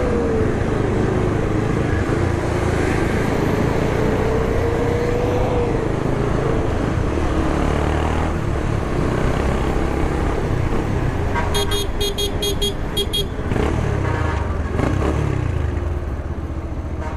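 Motorcycle engine running while riding in city traffic, its pitch rising and falling with the throttle over a steady low rumble. About twelve seconds in, a horn sounds in a quick series of short beeps.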